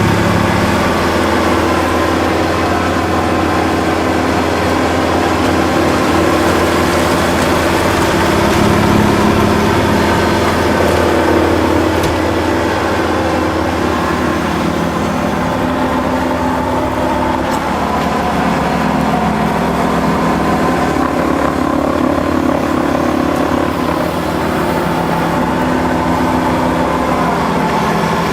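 Kubota L5740 tractor's diesel engine running steadily, its pitch shifting slightly now and then.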